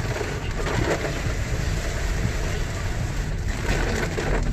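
Heavy rain on the car and tyres hissing on the wet road, with the car's low road rumble, heard from inside the moving car's cabin.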